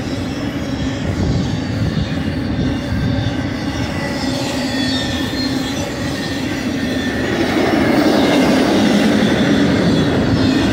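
BNSF intermodal freight cars loaded with highway trailers rolling past at speed: a steady rumble of steel wheels on rail with thin high wheel squeal over it, growing louder about seven seconds in.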